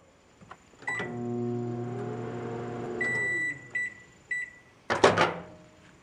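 Microwave oven: a keypad beep, then the oven runs with a steady hum for about two seconds and finishes with three high beeps, followed by a loud clunk of the door being opened. There is no arcing from the brad nail sitting in its glass Petri dish.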